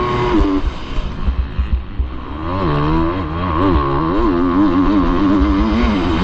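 Motocross bike engine heard onboard while riding a lap: the revs drop away about a second in, swing up and down through the next couple of seconds, then hold steady and high from about halfway, over a rough low rumble.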